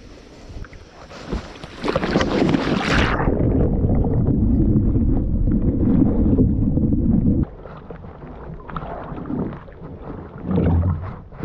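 Shallow river water splashing and sloshing as a person wades in beside a kayak, heard muffled with the microphone at and below the waterline for a few seconds, then cutting off suddenly. Lighter splashes follow, with one louder one near the end.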